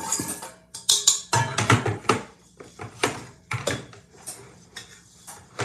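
Stainless steel mixing bowl and wire whisk attachment clinking and knocking while being fitted onto a stand mixer: a run of irregular metallic clanks and clicks.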